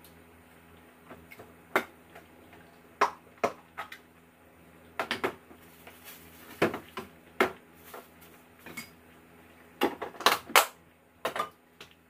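Kitchen utensils and containers being handled at the table: irregular sharp clicks and knocks, about a dozen, with a quick cluster of louder knocks near the end.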